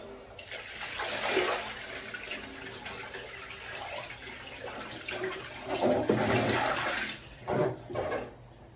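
Water sloshing and splashing in a plastic washbasin as it is lifted, tipped and carried, with a louder splashing spell about two-thirds of the way through.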